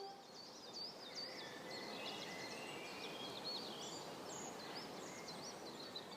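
Outdoor ambience of birdsong: several small birds chirping and trilling over one another, over a faint, even background hiss.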